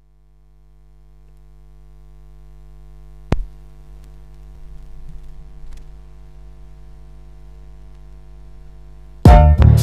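Steady electrical mains hum fading in, with a single sharp click about a third of the way in and light crackle. A loud hip-hop beat kicks in near the end.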